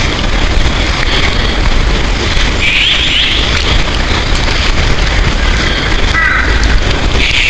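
Birds chirping over a loud, steady rushing noise: a few short chirps about three seconds in, and a small run of falling chirps near the end.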